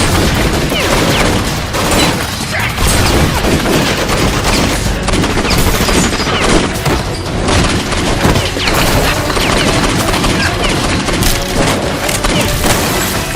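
A continuous barrage of gunfire and booms with no breaks, which sounds like added battle sound effects rather than the Nerf blasters themselves, with music underneath.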